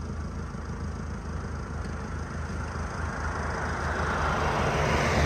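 A car approaching along the road, its tyre and engine noise growing steadily louder over the last two seconds, over a steady low hum.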